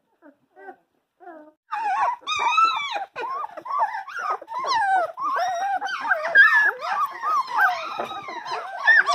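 19-day-old Dalmatian puppies whining and squealing in high, wavering cries: a few faint short peeps at first, then continuous overlapping cries from about two seconds in.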